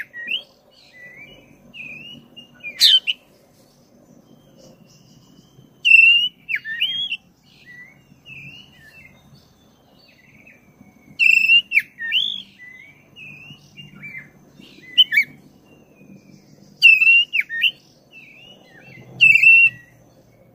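Oriental magpie-robin of the black-breasted 'kacer dada hitam' form singing in full voice: loud high phrases every few seconds, with softer chirps and warbles between them.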